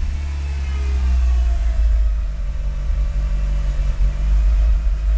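Mitsubishi Lancer Evolution IX MR's turbocharged 4G63 inline-four running at idle with a deep rumble. Its pitch falls over the first couple of seconds as the revs drop back, then it idles with a wavering level. This is the rough, bouncy idle that new spark plugs have not cured and that shows no vacuum leak.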